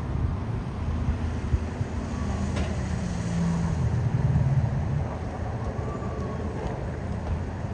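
An engine running, a low rumble whose pitch rises and swells about three to four seconds in, then settles back.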